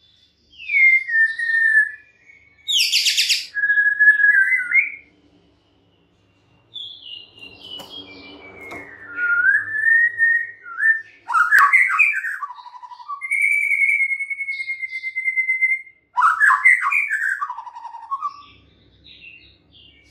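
White-rumped shama singing in varied phrases of clear whistles that slide up and down, with a short harsh buzzy note early on and one long held whistle midway. The phrases are broken by short pauses.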